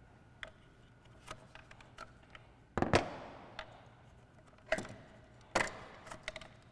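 Plastic clicks and knocks of the ECU's wiring connectors being unlatched and pulled off: safety clips and red locking levers flipped up and the connectors worked free. The clicks are scattered, with louder knocks about three, five and five and a half seconds in.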